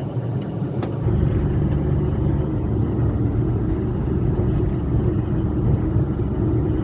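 A kei-class micro camper (Indy 727 on a kei truck, 5-speed manual, 4WD) driving, its small engine and road noise making a steady low rumble that grows louder about a second in.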